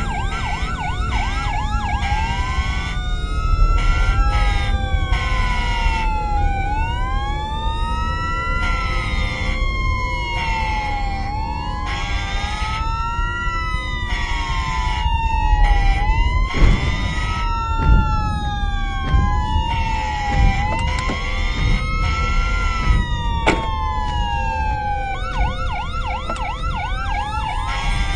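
Several emergency vehicle sirens wail together, their pitches rising and falling out of step, over a low rumble. A fast yelping warble comes at the start and again near the end, and a few short knocks sound past the middle.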